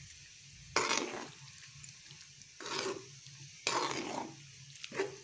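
Spoon stirring a thick chicken curry in the pan: four separate strokes through the gravy, spaced unevenly.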